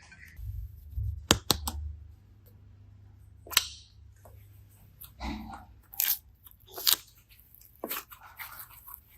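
Hands working slime: a series of sharp clicks and short crunchy, crackling squishes at uneven intervals, the loudest about a second in and at about three and a half seconds.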